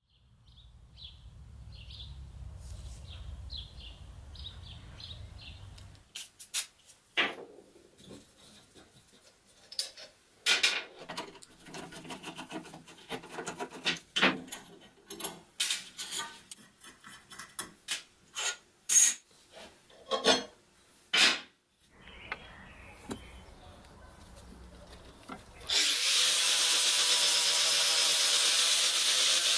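Tool work on a rusty saw: after a low hum comes a long run of short, sharp knocks and scrapes. Near the end an angle grinder starts and runs loud and steady with a whine, its disc grinding the rusty steel saw blade clamped in a vise.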